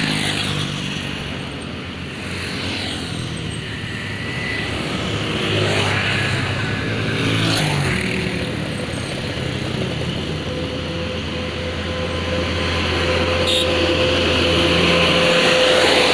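Road traffic: vehicles pass close by one after another, three of them in the first eight seconds. Then a heavier engine hums steadily, and a steady tone joins it near the end.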